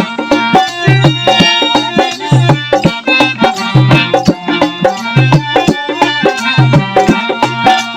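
Instrumental interlude of traditional Indian folk music: a hand drum keeps a steady beat of deep strokes with quick lighter strokes between them, under a melody of held, layered notes.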